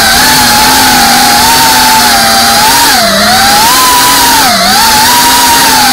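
FPV quadcopter's electric motors and propellers whining at high throttle, heard close from the onboard camera, the pitch dipping and climbing back twice (about three seconds in and again near four and a half seconds) as the throttle is eased and reapplied.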